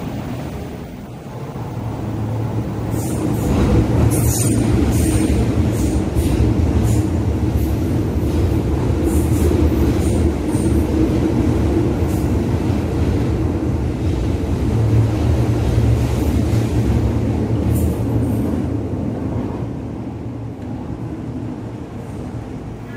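MTR M-train running past the platform without stopping: a steady low rumble that builds over the first few seconds and fades near the end. Sharp squeaks and clicks from the wheels on the rails come through the first half.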